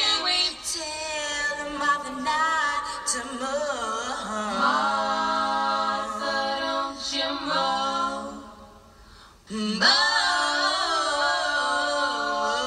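Music: a song of several voices singing in harmony with little or no instrumental backing. It fades away for a moment about three-quarters of the way through, then comes back in full.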